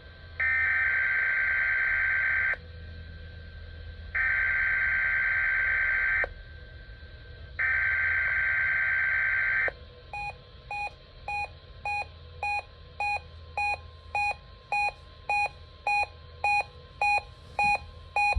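Three EAS SAME header data bursts on NOAA Weather Radio, each about two seconds of harsh digital warbling tone with short pauses between. They are followed by a run of short electronic beeps, about two a second, as the weekly test alert comes through.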